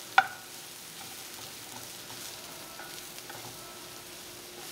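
Chopped mushrooms sizzling in a hot nonstick skillet while a wooden spatula stirs them. About a quarter second in comes one sharp, ringing clack of the spatula against the pan, followed by a few lighter taps.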